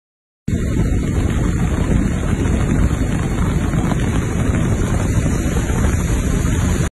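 Heavy wind buffeting the microphone, a loud steady rumbling rush. It starts abruptly about half a second in and cuts off suddenly at the end.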